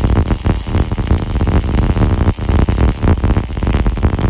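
Wire-feed welding arc crackling steadily and densely as a bead is run along a crossmember.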